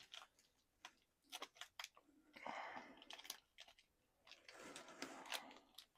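Faint handling noise from a plastic S.H. MonsterArts Skar King action figure as its joints are moved: a scattering of small clicks, with two short stretches of scraping about two and a half and five seconds in.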